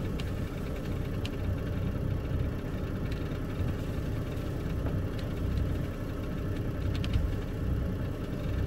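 Sailboat's auxiliary engine running steadily at idle during docking, a low rumble, with a few faint clicks.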